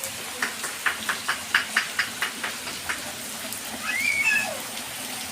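Steady rain hiss with a quick run of about a dozen sharp slaps or splashes, roughly four a second, then a brief high gliding cry near the end.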